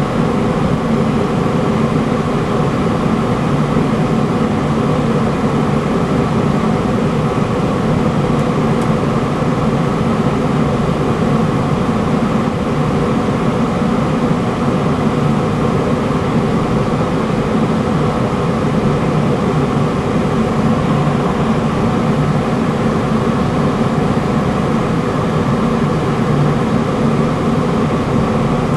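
Ruud gas furnace running with its burners firing, a steady, unchanging rushing hum.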